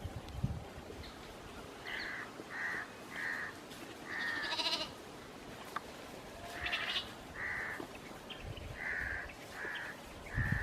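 Animal calls on a sheep and cattle farm: short, repeated calls in twos and threes, with one longer, wavering call about four and a half seconds in.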